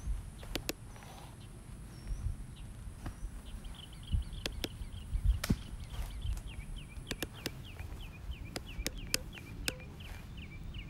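Irregular sharp clacks of training sticks striking during a counter drill, about a dozen, the loudest about five and a half seconds in. A bird chirps quickly and repeatedly through the second half, over a low wind rumble on the microphone.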